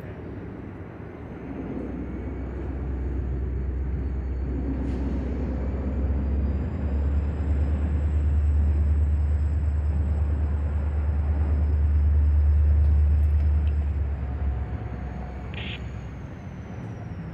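Diesel-electric locomotive of the Susquehanna (NYSW) working in a yard: a low engine rumble that builds over several seconds, holds, then eases off near the end.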